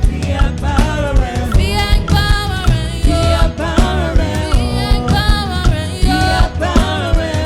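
Gospel worship song: voices singing over a band with bass and drums.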